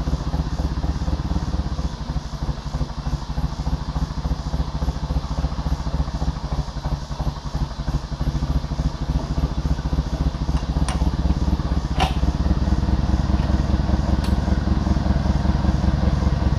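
Forklift engine idling with a rapid even pulse, its level rising a little past the middle as the forks take up the lifting straps. A few sharp metal clinks come in the second half.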